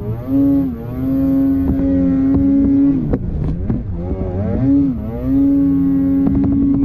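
Snowmobile engine revving high while the sled churns through deep powder. The revs climb and hold steady, drop off about three seconds in, then climb and hold again.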